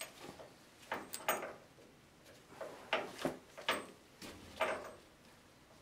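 Irregular metallic clinks, knocks and scrapes of a hand wrench on the bolt and nut of a shock absorber's upper mount, in about half a dozen short bursts with pauses between.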